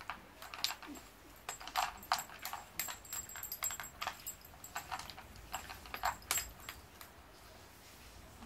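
Dog eating dry kibble from a plastic bowl: irregular crisp crunches and clicks of the pieces in quick runs, dying away about two seconds before the end.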